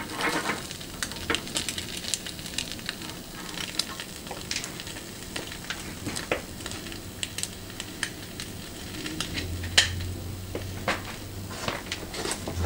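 An egg frying in oil in a small nonstick pan over a gas flame, sizzling steadily and crackling with scattered pops. A low steady hum comes in about nine seconds in.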